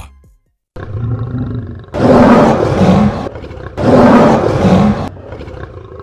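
Lion roar sound effect, two loud roars about a second and a half apart, over music.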